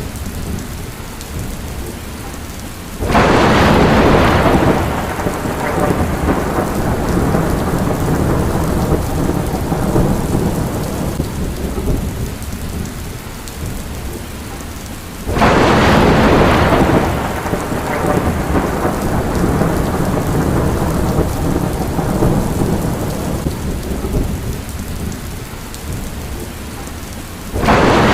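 Steady heavy rain with thunder: a sudden crack about three seconds in and another about halfway through, each rumbling away over a few seconds, and a third starting at the very end.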